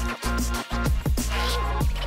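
Background electronic music with a deep bass line and a steady drum beat.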